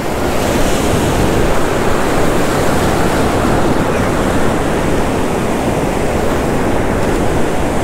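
Ocean surf washing in around a wading angler: a steady, loud rush of foaming breaking-wave water.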